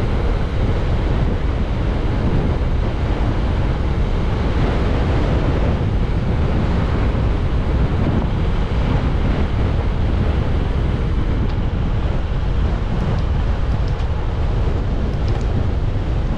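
Wind buffeting the microphone while cycling into a headwind: a steady, low-heavy rush of noise that does not let up.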